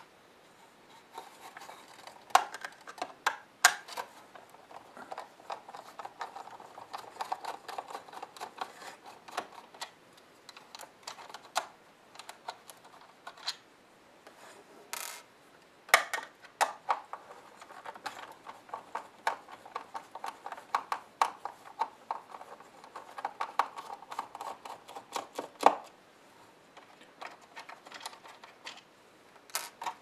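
Screwdriver turning screws out of the dehumidifier's plastic housing: rapid runs of small clicks and scraping, in two long stretches with a pause between them, and a few sharper ticks.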